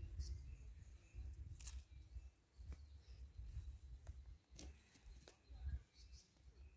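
Wind rumbling on the microphone, with a few faint sharp clicks scattered through and faint bird chirps in the background.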